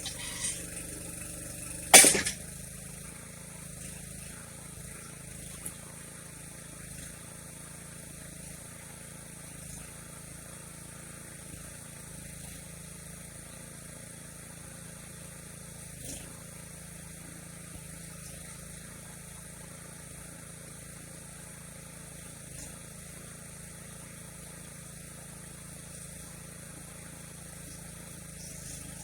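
A mini backhoe's engine running steadily at a low, even speed, with one sharp, loud bang about two seconds in and a few lighter clicks and knocks.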